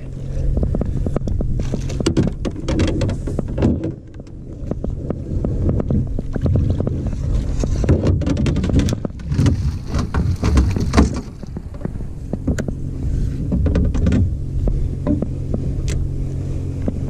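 A big northern pike thrashing and splashing in a landing net at the side of an aluminum boat, with the net, handle and rod knocking and clattering against the hull over a steady low hum. The splashing is heaviest about halfway through.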